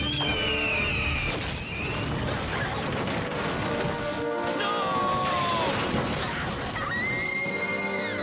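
Dramatic action-score music mixed with crashing and smashing sound effects, with a few gliding high tones, one falling about five seconds in.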